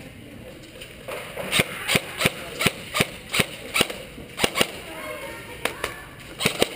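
Airsoft gun firing a string of single shots, sharp cracks about two to three a second, then a pause and a few more shots near the end.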